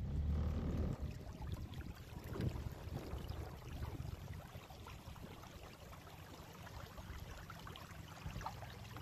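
Faint water sounds from a boat moving along a river: irregular lapping and gurgling against the hull over a low rumble, a little louder in the first second.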